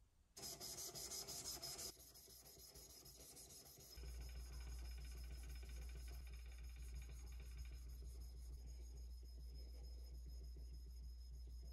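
Steel plane iron from a WoodRiver 5-1/2 bench plane, its back laid flat and rubbed back and forth on wet fine waterstones (5000 and then 12000 grit), giving faint, even rubbing strokes. From about four seconds in there is a steady low hum under the strokes.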